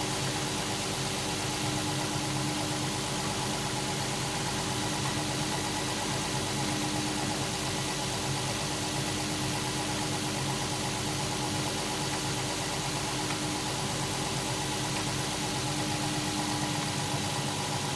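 Infiniti EX35's 3.5-litre VQ35HR V6 running steadily at idle while warming up, with an uneven knock, not constant, that the owner puts down, at about 90% certainty, to worn connecting-rod bearings. He puts the cause down to low oil during hard driving.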